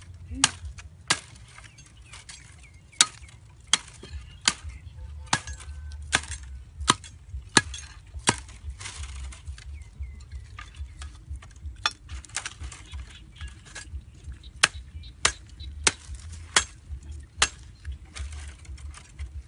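A short bladed digging tool chopping repeatedly into dry, hard soil to dig out a burrow. It gives sharp strikes about every three-quarters of a second.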